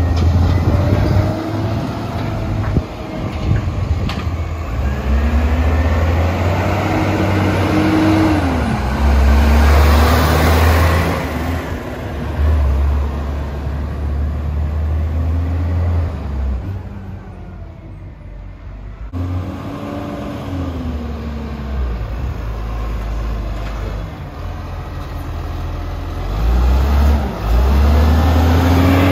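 Garbage truck engines running and revving, the engine note repeatedly rising and falling over a heavy low rumble. The sound dips briefly a little past halfway, then another truck's engine takes over.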